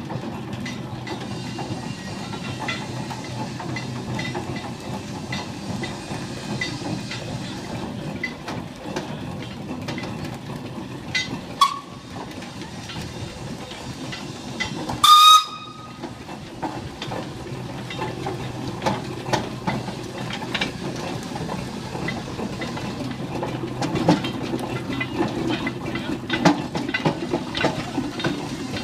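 Clayton and Shuttleworth steam traction engine running along the road and passing close, with a regular beat. Around the middle a steam whistle gives a brief peep, then a short, loud blast.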